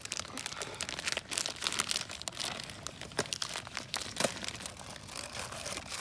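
Plastic food packaging crinkling as it is handled, with scattered small sharp clicks.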